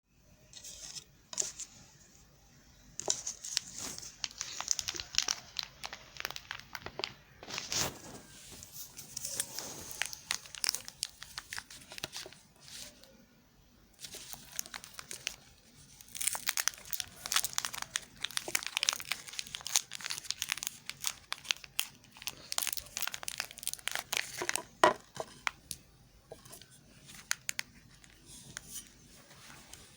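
Soap bars being unwrapped: packaging torn open and crinkled, in dense runs of sharp crackles with short pauses between bouts.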